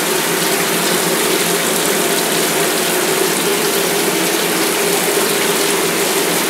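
Shower running, its spray splashing steadily into a bathtub of water.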